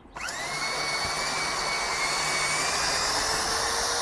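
A handheld electric power tool's motor starting up: the whine rises quickly in pitch, then runs steady with a strong hiss, and starts to wind down near the end.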